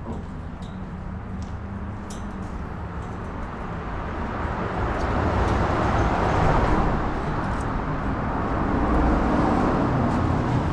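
Road traffic passing: tyre and engine noise that swells and fades, loudest about six seconds in and again about nine seconds in, over a steady low rumble.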